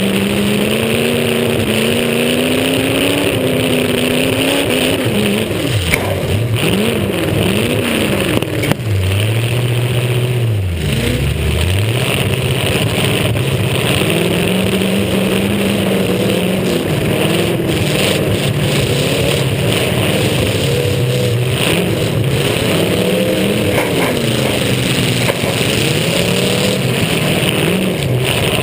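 Demolition derby car's engine revving up and down over and over, dropping briefly toward idle about eleven seconds in, with two sharp bangs around six and nine seconds in.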